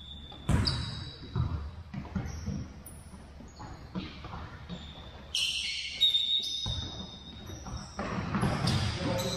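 Indoor soccer on a gym's hardwood floor: a ball being kicked and thudding on the court a few times, with sneakers squeaking in short high chirps, loudest a little past the middle. The sounds echo in the large hall.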